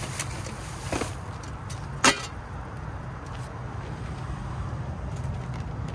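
Plastic trash bags and discarded items crinkling as they are handled in a dumpster, with one sharp crackle about two seconds in, over a steady low hum.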